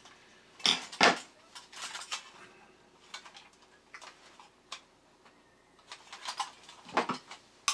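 Light metallic clicks and clinks of a tin toy robot's sheet-metal body being worked with a small tool and pulled apart by hand, with a couple of sharp clicks about a second in and another cluster near the end.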